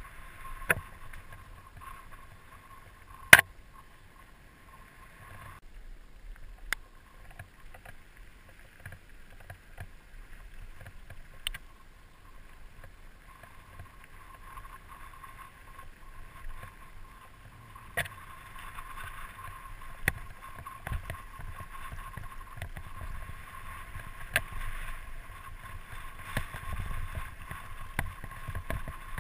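Mountain bike rattling down a rough dirt singletrack, with a steady rush of tyre and wind noise. Sharp knocks come every few seconds as the bike hits bumps, the loudest about three seconds in.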